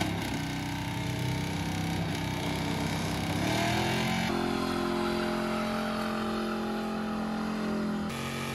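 Engines held at high revs during burnouts, running hard and steady, in short spliced clips. The sound changes abruptly about four seconds in and again near the end.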